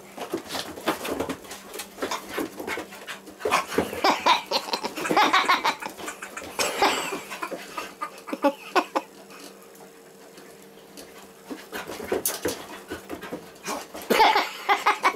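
A labradoodle and a basset hound play-fighting: dogs' vocal sounds and scuffling come in irregular bursts, with a lull in the middle and a fresh flurry near the end.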